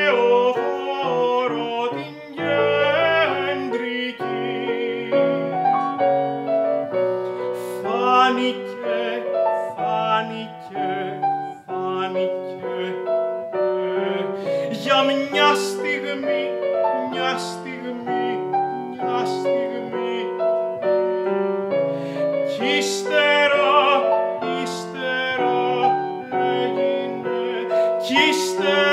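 Classical art song: a male singer in operatic style, his voice wavering with vibrato, accompanied by a grand piano.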